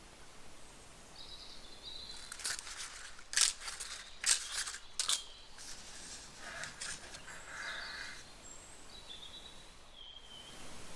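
Paper muffin cases and a metal muffin tin being handled: a cluster of sharp crinkling clicks about two to five seconds in, then a few softer rustles.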